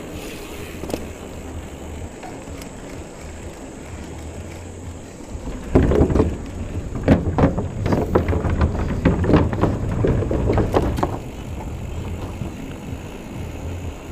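A 2017 Trek Remedy 7 mountain bike on a dirt trail: a steady rumble of tyres and wind on the microphone, then for about five seconds from near the middle a run of loud, irregular knocks and rattles as the bike goes over rough ground.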